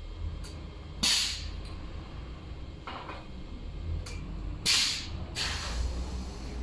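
Two-spindle CNC wood lathe running with a steady low rumble, broken by several short, sharp hisses, the loudest about a second in and near the five-second mark.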